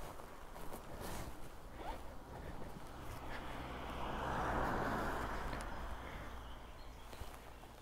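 A van passing on a road, its tyre and engine noise swelling about halfway through and then fading away, over a steady low hum. Light footsteps on a wooden boardwalk and rustling of riding gear.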